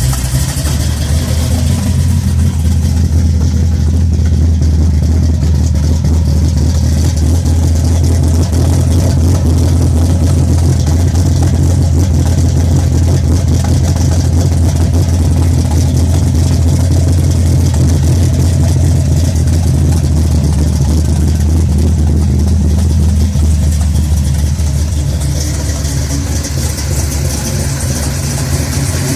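Big-block Chevrolet 496 V8 with AFR 315 heads, a custom Straub hydraulic roller cam and FiTech fuel injection, idling steadily just after being started. It grows a little quieter from about 24 seconds in.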